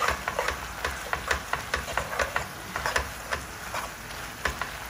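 Metal tongs tossing spaghetti in a skillet, clicking and scraping against the pan in quick irregular strokes, about three or four a second.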